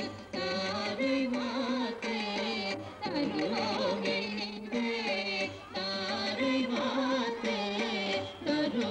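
A song in Carnatic style: a voice sings with melodic slides, over instrumental accompaniment that holds steady notes, with short breaks between phrases.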